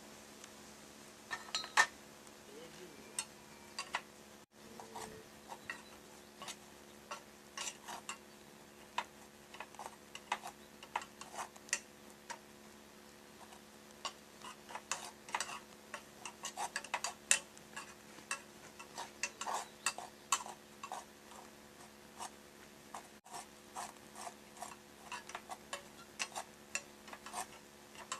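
A metal kettle packed with sawdust being heated for pyrolysis, ticking and crackling: irregular sharp clicks, several a second at times, over a faint steady hum.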